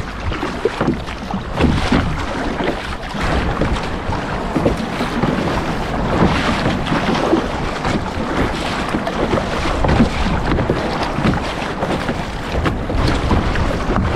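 Wind buffeting the microphone over choppy sea, with water slapping and splashing against the kayak's bow as it is paddled.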